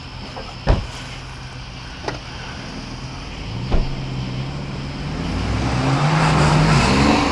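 Car engine running steadily, then revving up and down and growing louder from about five seconds in as the vehicle works over off-road obstacles. Three sharp knocks come about a second in, at about two seconds and near four seconds.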